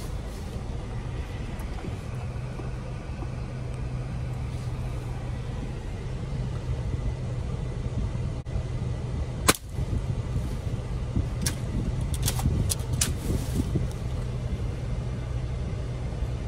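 Toyota's engine idling with a steady low hum, heard from inside the cab. About halfway through comes one sharp crack of a scoped air rifle fired out of the driver's window, followed a couple of seconds later by a few lighter clicks.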